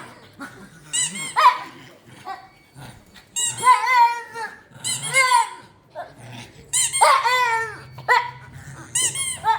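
Pet dog making short, high-pitched whining yelps, about five calls in all, each under a second and bending in pitch.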